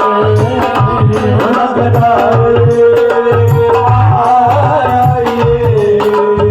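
Punjabi devotional music: a steady, even hand-drum beat under long held melody notes over a sustained drone.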